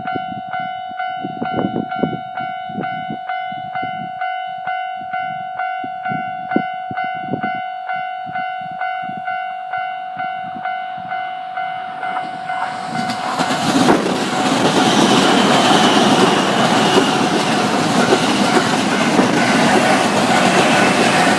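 Level crossing warning bell ringing in a steady repeating ding, about two strikes a second. About thirteen seconds in, a 209 series electric commuter train arrives and runs through the crossing, its loud rushing rumble of wheels on rail drowning out the bell.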